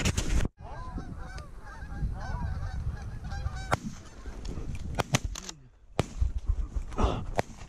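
A flock of Canada geese honking overhead, many calls overlapping in the first few seconds. Several sharp cracks follow in the second half.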